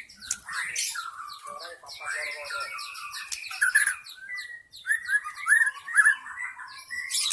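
White-rumped shama singing a continuous, varied song of clear whistles, quick chattering runs and short upswept notes.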